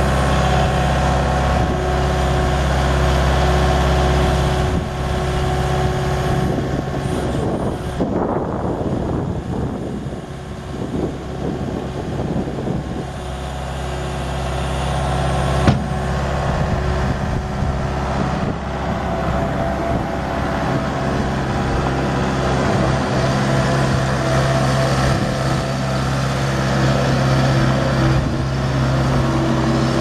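Kubota four-cylinder turbo diesel engine of a Bobcat S205 skid steer running steadily. For several seconds about a third of the way in it dips and turns uneven, and a single sharp knock comes about halfway through.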